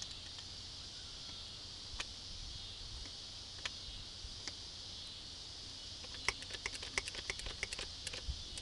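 Handling a hand-pumped hydraulic wire crimper and battery-cable lug: a few single sharp clicks, then a quick irregular run of clicks near the end, over a steady high hiss.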